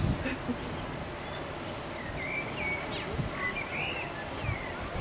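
Outdoor ambience with a steady low background noise and a few short, high bird chirps in the middle.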